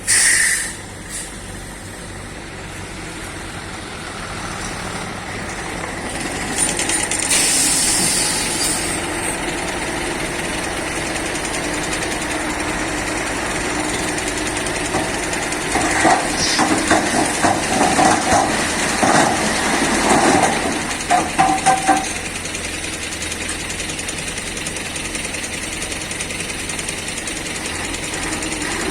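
Heavy diesel machinery of an excavator and dump truck running steadily. A short hiss comes right at the start and another about seven seconds in, and a run of clanks and knocks follows from about sixteen to twenty-two seconds in.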